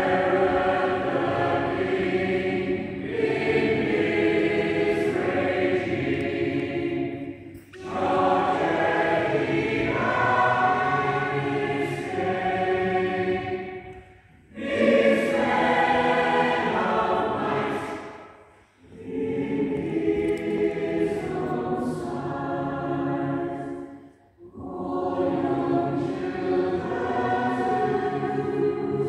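Choir singing in five long phrases, with short breaks between them.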